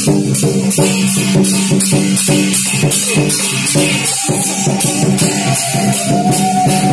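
Music with a steady beat of about four strokes a second over a bass line, with a held melody line coming in about four seconds in.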